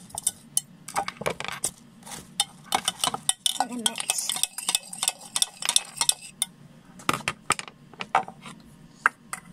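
Quick, irregular clicking and tapping of a stirrer against a clear plastic mug as a drink is stirred. The clicks thin out over the last few seconds.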